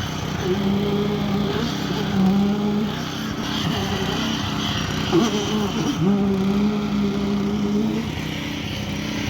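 Engine of a truck-mounted Cifa concrete pump running steadily at high speed while pumping concrete, its note wavering and dipping briefly about halfway through.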